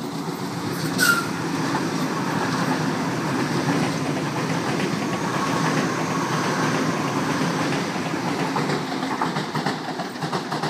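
Waratah double-deck electric train passing along the platform: a steady running noise of wheels and traction equipment that builds as the train comes alongside and eases off near the end, with a short high-pitched tone about a second in.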